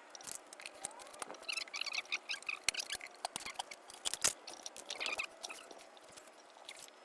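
A 10-inch scooter tyre being worked off its rim: rubber squeaking and creaking against the wheel, with scattered clicks and scrapes. Short squeaky rubber chatter comes in bunches about a second and a half in and again near five seconds.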